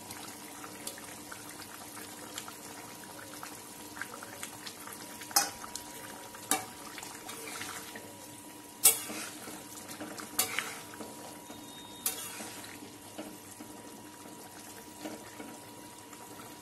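A steel spatula stirring fish curry in a metal kadai, knocking sharply against the pan several times, the loudest about nine seconds in. Under it runs a steady low hiss of the simmering pot.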